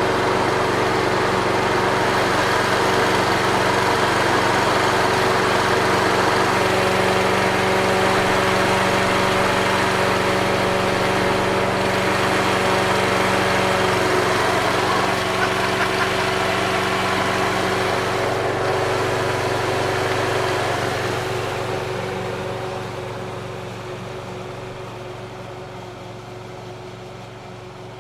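Victa Ultimate lawn mower running steadily, fading over the last several seconds.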